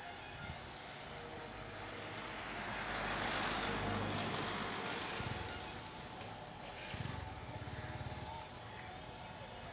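Road traffic: a vehicle goes by, swelling and fading about three to five seconds in, and another engine passes about seven seconds in.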